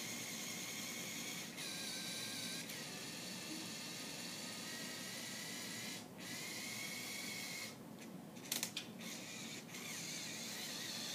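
Lego Technic 8043 motorized excavator's small electric motors and plastic gear trains whirring with a thin whine, stopping briefly twice and starting again, with a few sharp clicks about eight and a half seconds in.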